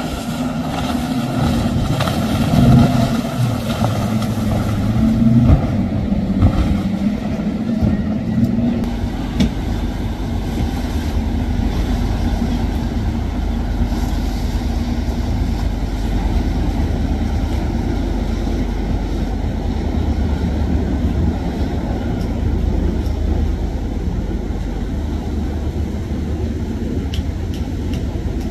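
Motorboat engines running with a steady low rumble. In the first several seconds a higher engine note wavers up and down over it, then the rumble settles.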